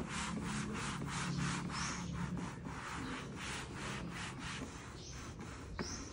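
Microfibre cloth rubbed briskly back and forth over the plastic top of a Brother DCP-T420W printer, about four wiping strokes a second, easing off near the end.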